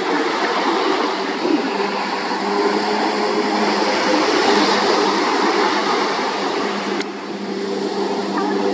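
Jet ski engine running steadily, its hum mixed with a rush of water and wind noise; a sharp click about seven seconds in, with a short dip in level after it.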